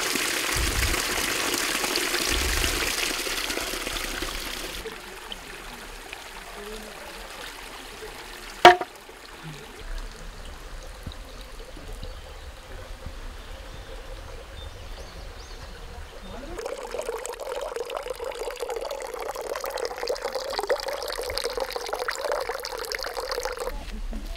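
Water pouring and trickling from a spout into a container. It is louder for the first few seconds, then quieter, with one sharp knock about nine seconds in and a steadier filling sound again from about sixteen seconds.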